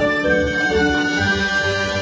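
Instrumental background music with slow, held melodic notes.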